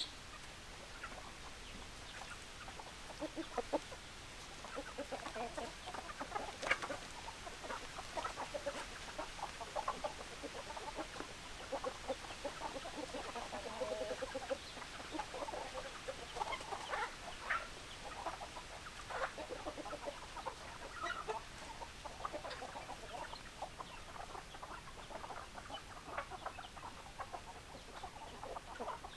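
A flock of hens clucking, with many short calls overlapping one another.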